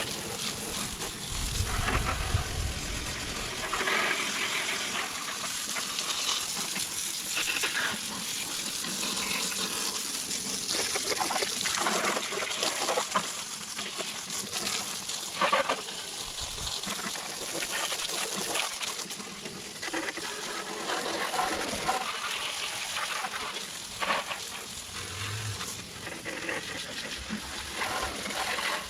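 Garden hose spraying water onto a lawn mower, rinsing off foaming cleaner: an uneven rushing splatter that keeps shifting as the spray moves over the deck and engine.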